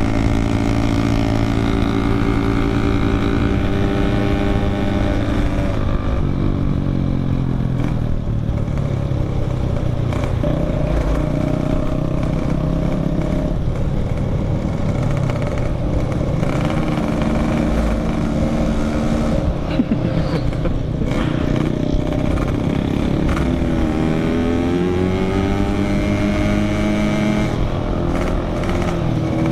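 Yamaha RX-King 135 cc two-stroke single running under way through a packing-power aftermarket muffler, very loud. The revs fall about five seconds in, hold, then rise again near the end.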